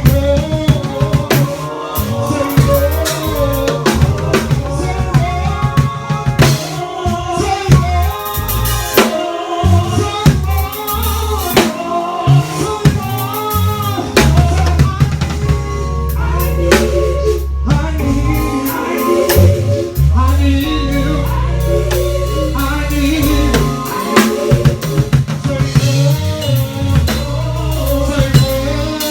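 Gospel band playing: a bass guitar holding long, low sustained notes under a drum kit with snare, rimshot and bass-drum hits, with keyboard parts above.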